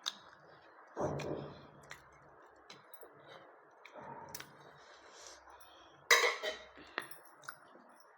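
Eating at a plate: sharp clinks of dish and cutlery now and then, with louder eating noises about a second in and again about six seconds in.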